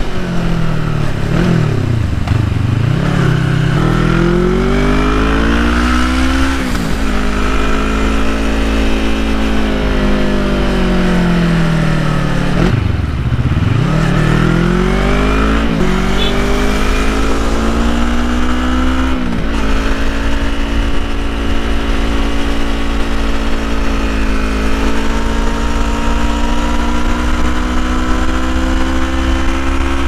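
Yamaha MT-25/MT-03 parallel-twin engine through an open "hole" exhaust, heard on board while riding. The engine note drops twice, about two and thirteen seconds in, and in between and after it pulls up through the gears with quick upshifts. In the second half it settles into a steady cruise, slowly rising.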